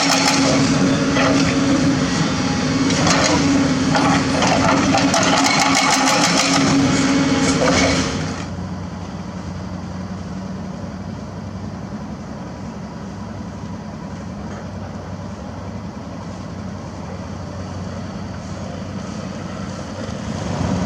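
Heavy diesel construction machinery running. For about the first eight seconds a loud engine works under many sharp knocks and rattles. Then the sound drops abruptly to a quieter, steady engine hum.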